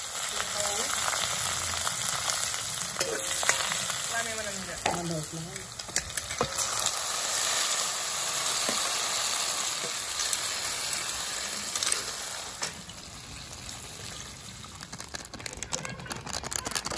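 Leeks, fenugreek leaves, river snails and bamboo shoot frying and sizzling in hot oil in a large aluminium wok as they are stirred, with a few clicks against the pan. The sizzle drops to a quieter level about three-quarters of the way through.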